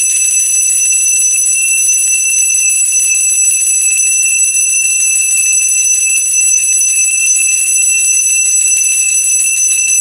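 Small brass puja hand bell rung without pause, a steady, loud, high-pitched ringing with several clear tones.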